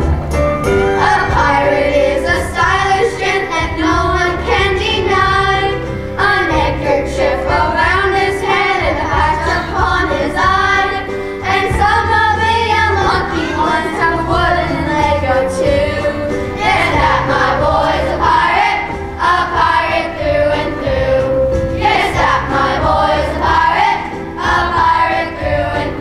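A group of children singing a song together as a choir, over an instrumental accompaniment with a steady bass line.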